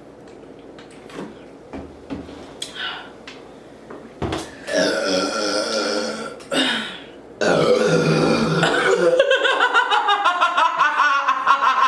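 Loud burps after chugging cola: a long burp about five seconds in, a short one just after, then a long drawn-out belch from about seven and a half seconds in that breaks into a rapid rattle. A few faint ticks come before them.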